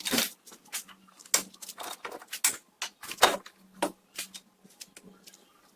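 Irregular metallic clicks and knocks, about a dozen, of hand work on a car's front suspension as the strut-to-steering-knuckle bolts are withdrawn and the knuckle is tilted aside.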